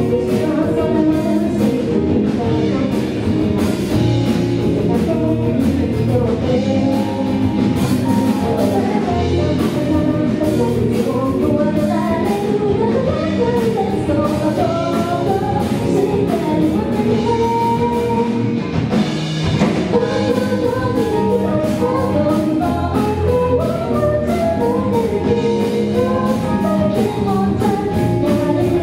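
Live rock band playing a J-rock song: female vocals singing over electric guitars, bass guitar and a drum kit.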